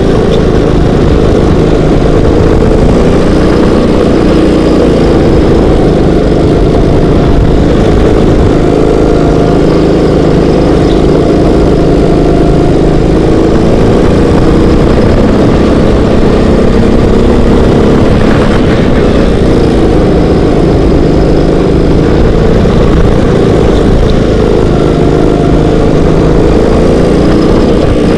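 Racing kart's engine running loud and close, heard from the driver's seat, its pitch dipping and rising as the kart goes through corners and back onto the throttle.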